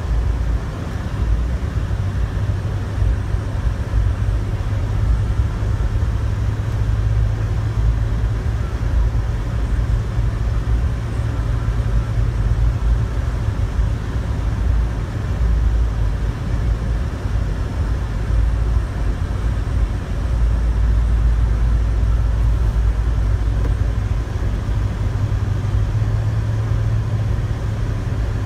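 Steady low rumble of a vehicle's engine and tyres, heard from inside the cabin while driving on a snow-covered road; it grows a little louder about two-thirds of the way through.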